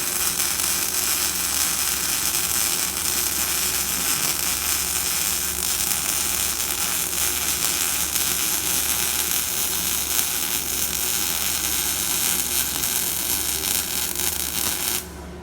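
Electric arc welding: a steady, loud sizzling hiss of the arc over a low machine hum, cutting off suddenly near the end as the arc is broken.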